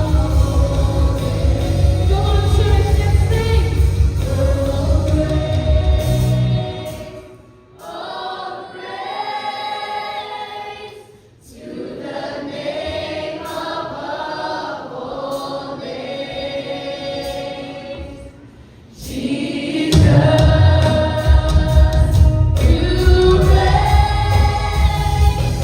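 Church worship team singing a Christian worship song together with a live band. About six seconds in, the bass and drums drop out, leaving the voices over light accompaniment. The full band comes back in about twenty seconds in.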